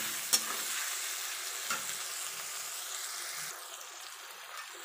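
Sliced onions, tomato and green chillies sizzling in hot oil in a metal kadai, the onions frying towards brown. A steel spatula clicks against the pan about a third of a second in and again near two seconds, and the sizzle dims a little after about three and a half seconds.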